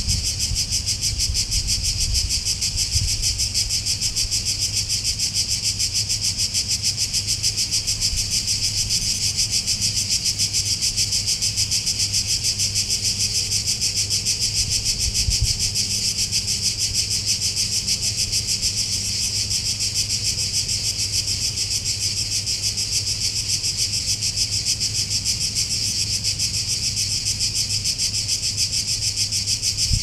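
A steady, dense chorus of cicadas buzzing in the trees, a fast pulsing high buzz that does not let up, over a faint low rumble.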